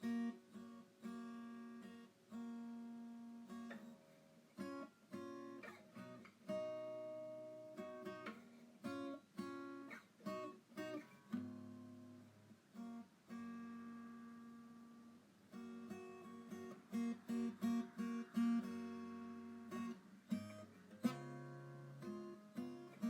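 Background music: acoustic guitar playing plucked notes and strummed chords that ring and fade.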